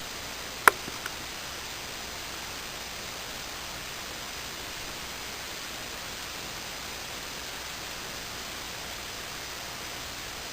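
Steady hiss of background noise, with one sharp click a little under a second in and two faint ticks right after it.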